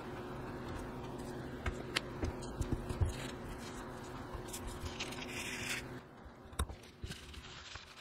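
Light clicks and taps of plastic keyboard stabilizer parts being handled on a paper towel: a handful in the first few seconds and one more late on. Paper towel crinkles and rustles around the middle. A steady low hum runs underneath and stops about six seconds in.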